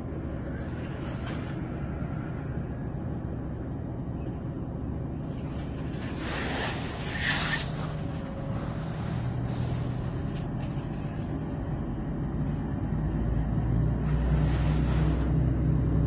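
Regional train heard from inside the carriage as it departs. A steady low hum is cut by a brief hiss about six seconds in, then a low drone builds and grows louder as the train starts moving.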